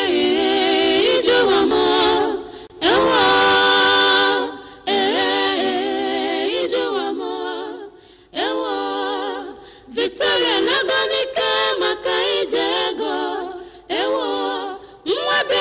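Unaccompanied singing laid over the video as background music: sung phrases a few seconds long with a wavering, vibrato pitch, separated by short breaks.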